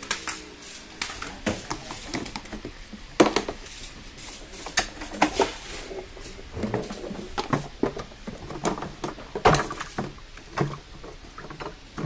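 Irregular plastic clunks, clicks and knocks as a Numatic WVD900 wet-and-dry vacuum is opened up: its motor head and filter cage are unlatched and lifted off the tank, which holds water picked up in wet cleaning.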